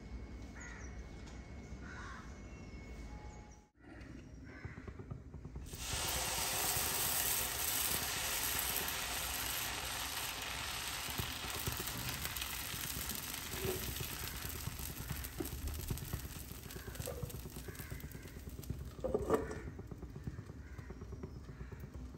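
A few faint bird calls against a quiet background. Then a steady hiss of dosa batter sizzling on a hot cast-iron pan as it is spread with a ladle, with a metal clank of a utensil about nineteen seconds in.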